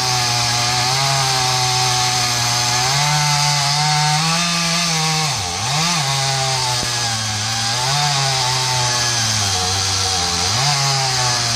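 Chainsaw cutting into a poplar trunk. Its engine note sags under load about halfway through and again near the end, picking back up each time.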